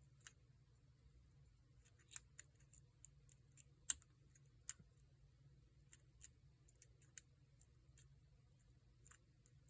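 Faint, irregular metallic clicks of a hook pick working the security pins inside a Paclock 90A-PRO padlock under light tension, about twenty small ticks with a louder one about four seconds in.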